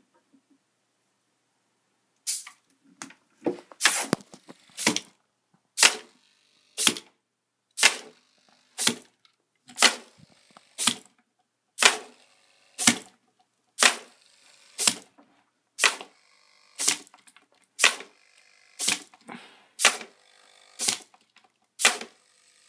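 The quadruped robot's small hobby servos move its legs in short, jerky steps. Each move is a brief sharp burst of servo noise, and the bursts come about once a second, beginning about two seconds in.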